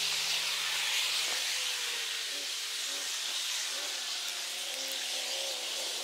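Sound of a walk along a rocky trail played back at four times speed: a steady hiss, with short faint chirping pitches over it from about a second and a half in.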